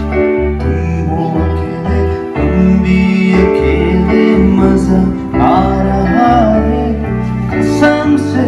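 A Hindi-language song: a voice singing over keyboard and piano with a steady low bass.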